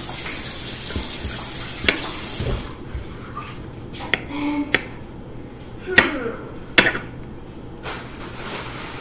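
Kitchen knife chopping strawberries on a wooden end-grain cutting board: about eight sharp taps of the blade on the wood at irregular intervals. A steady hiss runs under the first two and a half seconds.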